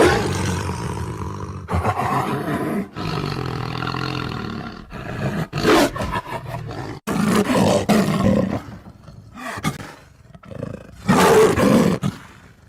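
Tiger roaring: a string of loud, rough roars, each a second or two long, with short pauses between them.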